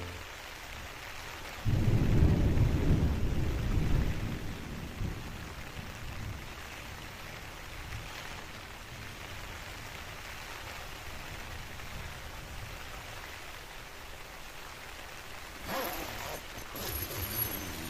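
Rain falling steadily on a tent's flysheet. About two seconds in a deep rumble starts suddenly and fades over a few seconds, and near the end there is brief rustling of fabric.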